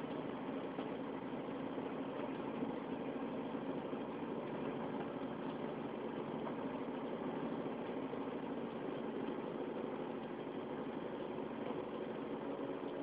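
Vehicle engine running steadily as it drives slowly along a lane: a continuous even drone with a steady hum, no revving or changes.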